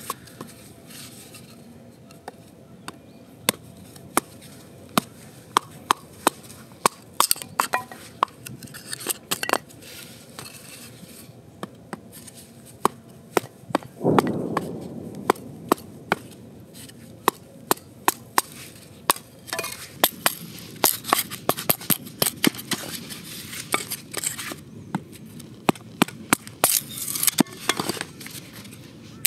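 A hatchet knocking into and splitting a piece of firewood into kindling: sharp irregular knocks of steel and wood on wood, with a fuller crack of the wood splitting about halfway through.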